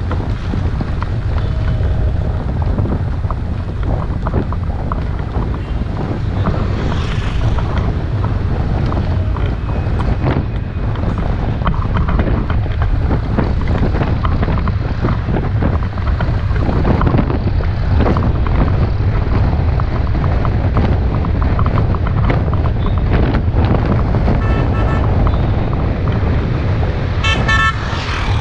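Steady wind noise and rumble on a moving vehicle's action-camera microphone, with a vehicle horn beeping in several short toots near the end.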